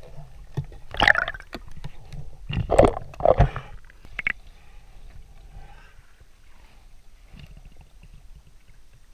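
Muffled underwater noise from a submerged action camera: loud bursts of water rushing and bubbling about a second in and around three seconds in, then a quieter steady underwater hiss.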